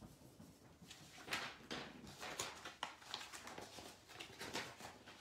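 A run of irregular short rustles and knocks, handling noise close to the microphone, starting about a second in.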